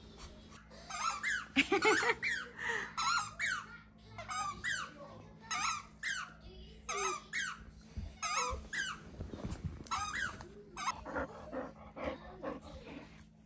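A young child's high-pitched yips and squeals in imitation of a dog, short rising-and-falling calls repeated again and again, with a laugh or two.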